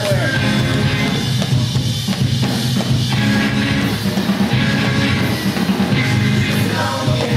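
Rock music with a drum kit and bass guitar; a voice sings near the start and again near the end.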